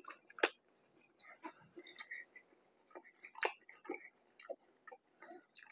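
A person chewing a mouthful of ground pork mac and cheese burger sandwich, mouth closed: soft, scattered mouth clicks at irregular intervals.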